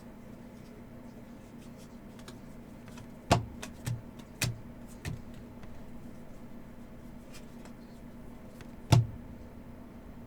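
Trading cards and packs handled on a table: about six short, sharp clicks and knocks, the loudest about three seconds in and again near the end, over a steady low hum.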